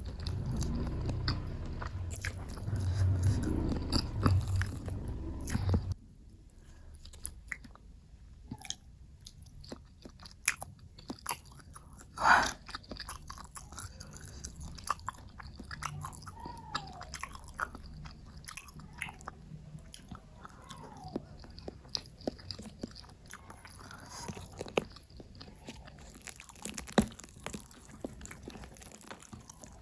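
Close-miked eating sounds: a person chewing and biting food, with many short wet clicks and crisp crunches. The first six seconds are louder and deeper and stop abruptly, and one sharp, loud crunch comes near the middle.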